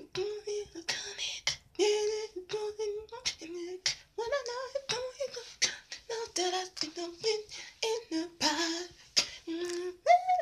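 A woman singing unaccompanied, held and sliding notes broken by many short sharp clicks and hisses made with the mouth.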